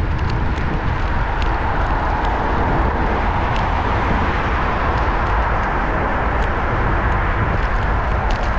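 Steady rush of wind and road rumble on a bicycle-mounted GoPro's microphone while a Brompton folding bike rides along a city street, with scattered light clicks and rattles.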